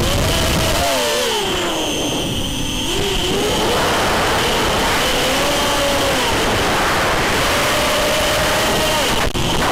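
Racing quadcopter's four Cobra CM2204 2300KV brushless motors spinning DAL 5045 bullnose propellers on a 4S battery: a loud buzzing whine that keeps rising and falling in pitch with the throttle. The sound drops out briefly just before the end, as from a quick throttle cut.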